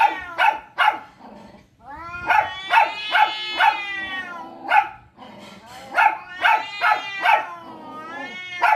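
Two cats in a face-off yowling at each other in long, wavering, rising-and-falling calls. Short sharp calls repeat two or three times a second over the yowls throughout.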